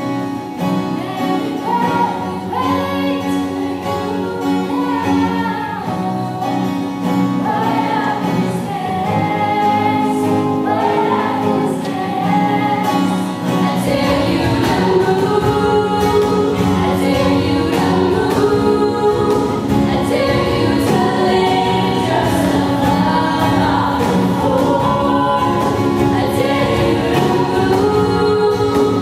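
Female vocal group singing in harmony. The sound fills out in the low end and grows a little louder about halfway through.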